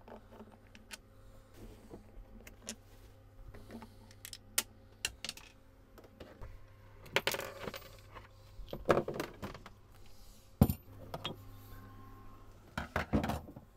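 Hand screwdriver work on a portable cooler's plastic handles and fittings: scattered clicks, taps and light rattles as the screws come out and the plastic parts are pulled off and handled, with a few louder knocks in the second half. A low steady hum runs underneath.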